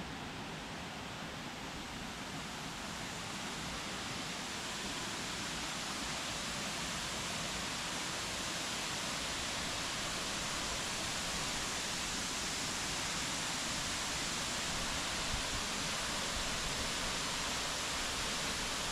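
Steady rushing of a waterfall, slowly growing a little louder.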